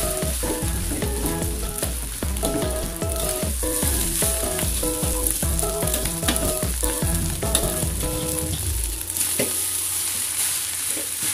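Fried rice sizzling in a hot aluminium wok while a metal spatula scrapes and tosses it over and over. Background music with a steady beat plays under it and stops about nine seconds in.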